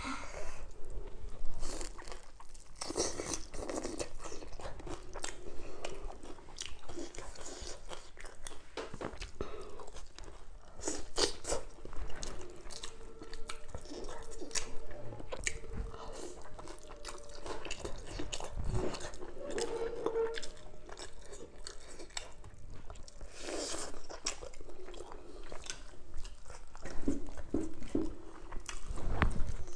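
Close-up eating: a person biting into and chewing a lettuce-wrapped piece of fried salmon, with many crisp crunches and wet mouth sounds.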